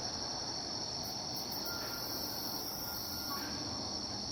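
Steady chorus of night-singing insects such as crickets, a continuous high trill that does not change, with a fainter, higher hiss joining for a couple of seconds partway through.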